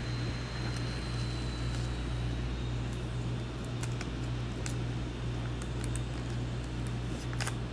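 Steady low room hum with a few faint clicks of trading cards being handled, the clearest near the end.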